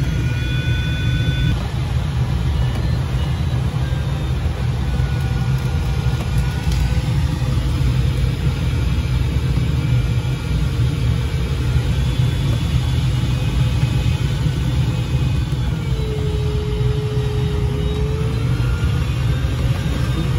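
Steady low rush of airflow around the canopy, heard inside the cockpit of a Grob Twin Astir two-seat glider in flight. A quieter electronic variometer tone wavers in pitch over it, dropping lower for a few seconds near the end.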